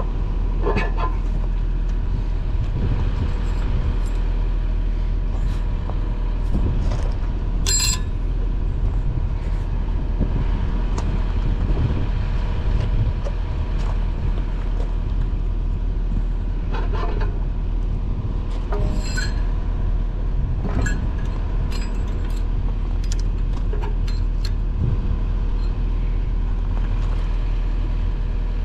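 A Yanmar mini excavator's diesel engine idling steadily, with several sharp metal clinks from the steel pivot pin and washers being handled at the thumb bracket.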